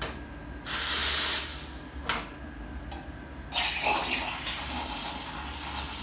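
Iberital L'Anna espresso machine's steam wand hissing in bursts as its valve is opened: a loud blast of steam about a second in, a brief puff near two seconds, then steam hissing again from about halfway through as the wand goes into the milk pitcher.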